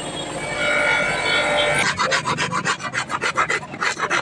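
Fast rasping strokes of a hand tool scraping over metal, about five or six a second, starting about two seconds in after a steady high tone.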